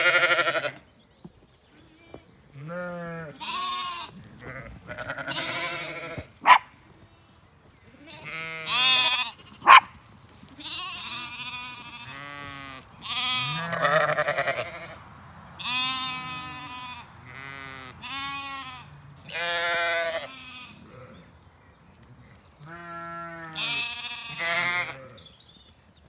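Zwartbles sheep and lambs bleating call after call, some calls deep and some higher-pitched, with a wavering tremble. Two sharp knocks stand out between the calls.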